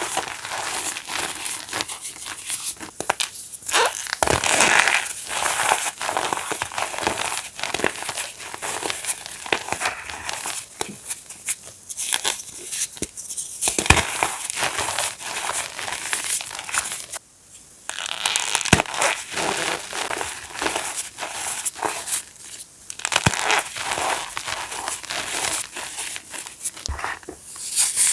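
Reformed gym chalk being crushed and crumbled into powder: a dense, continuous run of crisp crunches and crackles, with a brief pause partway through.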